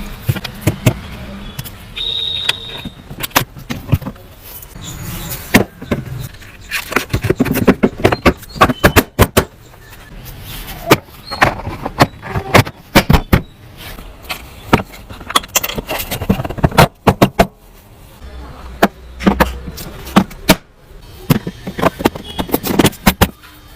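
Many irregular sharp clicks and knocks, some in quick runs, as hard objects are handled.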